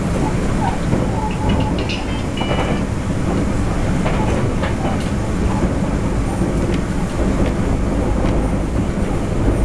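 Cabin noise inside a TEMU1000 Taroko Express tilting electric train running at speed: a steady rumble of wheels on rail with occasional clicks.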